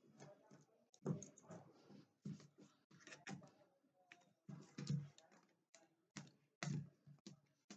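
Laptop hinge being unscrewed and taken off a plastic-and-metal laptop chassis: faint, irregular clicks, taps and knocks of a screwdriver and fingers on the parts, the loudest about a second in, near five seconds and near seven.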